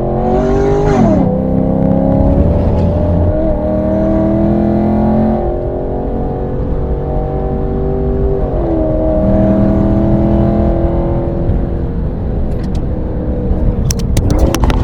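Chevrolet SS's 6.2-litre LS3 V8 pulling under load, its pitch climbing steadily, with an upshift about a second in and another about eight and a half seconds in. A few sharp clicks sound near the end.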